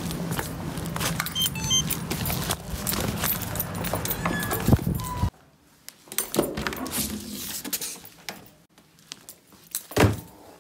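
Rustling and knocking of a padded paper mailer being handled, then after an abrupt cut, keys jangling with clicks at a door lock and handle, and a single loud knock near the end.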